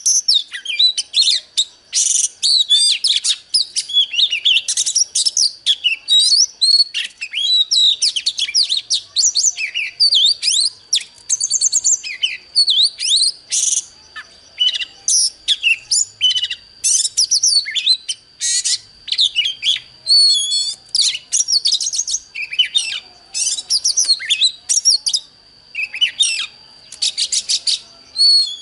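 Oriental magpie-robin singing a long, fast run of varied whistled phrases, chirps and trills, one after another with hardly a pause. A steady high-pitched tone sounds underneath from about halfway through.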